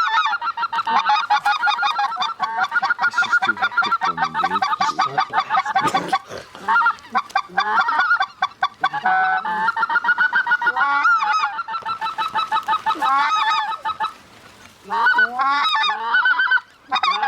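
Geese honking and clucking rapidly, several voices at once in a dense chorus, with a short break about 14 seconds in and another near the end.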